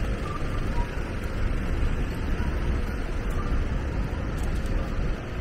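City street ambience at a busy crossing: a steady low rumble of vehicle engines and traffic, with indistinct voices of passers-by.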